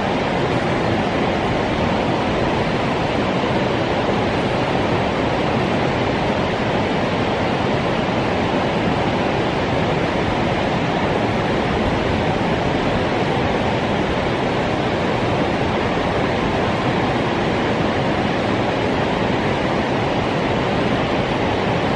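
Flash-release discharge from Hitokura Dam: a jet of water from an outlet in the concrete dam wall crashing into the stilling basin below. It makes a steady, even rush of falling water that does not let up.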